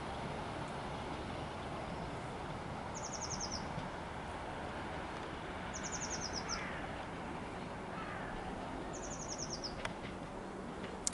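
A small songbird singing a short, fast, high trill, repeated about every three seconds, over the steady low rumble of a departing NIR Class 4000 diesel multiple unit. A sharp click comes near the end.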